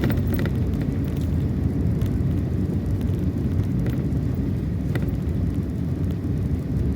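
Steady low rumble of a vehicle driving along the road, engine and tyre noise, with a few faint light ticks.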